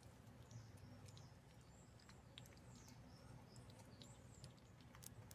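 Faint, high, short chirps of small birds, several of them sliding down in pitch, over a low steady hum, with a few faint clicks.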